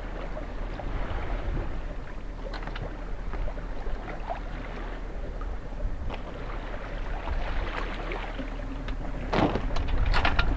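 Water washing along the hull of a small Folkboat sailing yacht under way, a steady rushing noise with scattered small knocks, and a louder rush of noise with clicks about nine seconds in.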